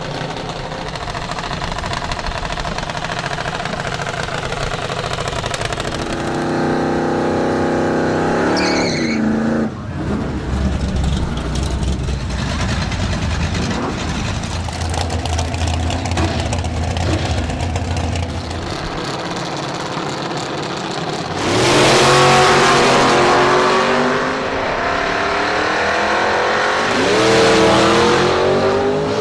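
Drag-racing cars' V8 engines revving hard and accelerating down the strip, each run climbing in pitch. One cuts off abruptly about nine seconds in; the loudest runs start around two-thirds of the way through and again near the end.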